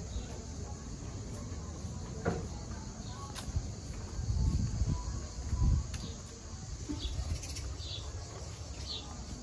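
Outdoor ambience: a small bird giving short high chirps several times over a low, uneven rumble that swells about halfway through, with a couple of faint sharp clicks.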